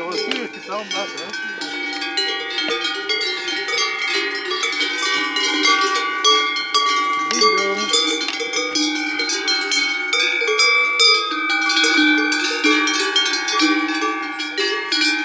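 Large cowbells on the collars of grazing cows clanging continuously, several bells ringing at once with overlapping tones as the animals move and feed.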